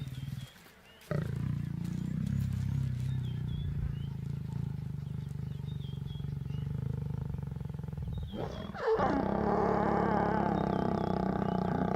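Lions growling during mating: a low, steady rumbling growl, then a louder snarling call from about nine seconds in.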